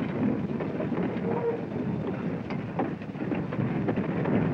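Cartoon sound effect of a train running along its track: a steady rumble with scattered light clicks.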